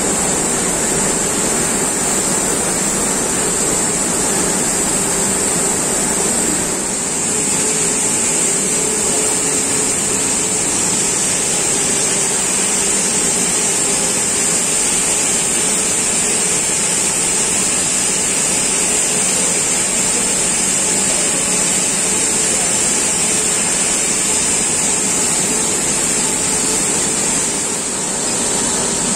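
Continuous induction bright annealing machine for stainless steel flexible hose running: steady machine noise with a constant high hiss.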